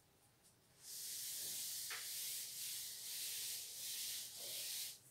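Blackboard duster rubbing chalk off a chalkboard: a dry, hissing wipe that starts about a second in and runs for about four seconds before stopping.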